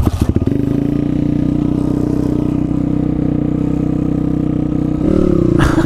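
YCF pit bike's single-cylinder four-stroke engine catching and idling steadily, then revved up a little about five seconds in, its pitch rising.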